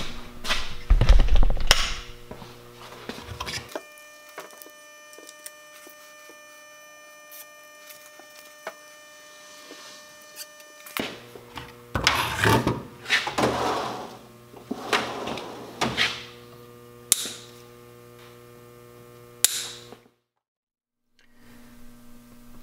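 Hands working on a metal panel and its wiring on a workbench: knocks, rustling and a few sharp clicks over a steady electrical hum. In the middle there is a stretch of hum alone, and the sound cuts out for about a second near the end.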